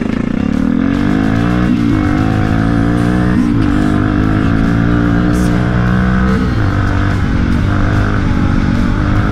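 Honda FourTrax quad bike's single-cylinder four-stroke engine pulling along a dirt road, its pitch rising as it gathers speed and dropping back at each of three gear changes.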